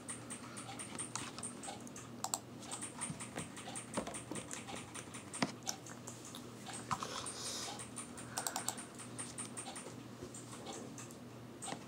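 Faint, irregular clicks and taps over a low, steady hum.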